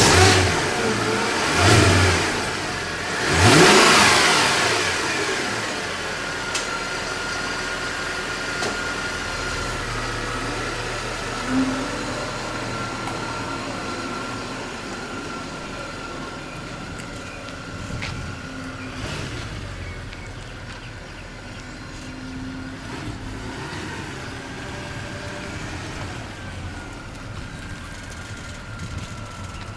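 Mercedes-Benz CLS63 AMG's 6.3-litre V8 revved three times in quick succession in the first four seconds, then running at a steady idle while the car backs out of the driveway into the street.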